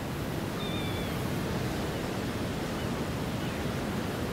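Ocean surf washing and wind, a steady even rush of noise, with a faint short high call about half a second to a second in.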